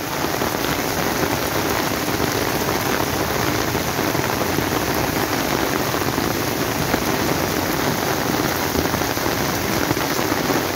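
Heavy rain pouring down on a road and trees, a steady even hiss of rain with no breaks.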